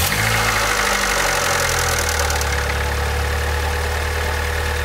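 Honda B16A2 1.6 litre DOHC VTEC four-cylinder engine just cold-started and running at fast idle. It clacks for the first couple of seconds while the oil circuit fills, which is normal on a cold start, then settles about two seconds in to a steady, even idle.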